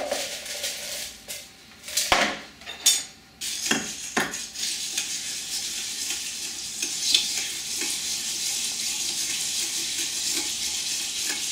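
Crushed ice tipped from a jug into a silver julep cup, with a few sharp clinks and knocks, then a long bar spoon stirring the mint julep over crushed ice in the metal cup in a steady churning rattle from about four seconds in.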